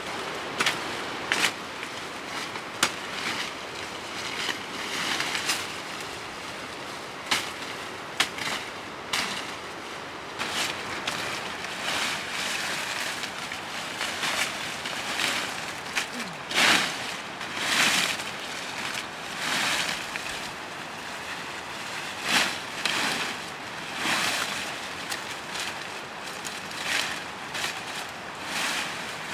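Leafy fodder branches rustling and swishing as they are cut and handled, with sharp cracks of branches being cut now and then, mostly in the first half, and louder rustling swells later.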